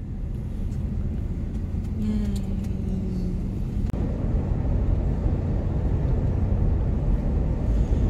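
Steady low rumble of a car's engine and tyres, heard from inside the moving car. About two seconds in, a faint low tone briefly falls in pitch.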